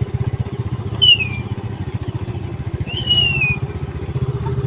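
Small motorcycle engine running steadily, a low even pulsing hum. A high, falling whistle-like tone sounds over it three times, about two seconds apart.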